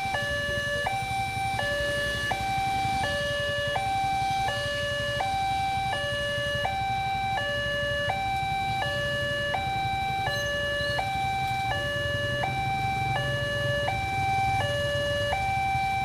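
Railway level-crossing warning alarm sounding its electronic two-tone signal, a high note and a lower note alternating steadily, each held about three-quarters of a second. A low rumble of traffic waiting at the lowered barrier runs underneath.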